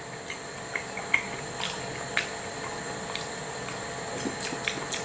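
Mushrooms sizzling in a frying pan: a steady hiss with scattered small crackles and clicks.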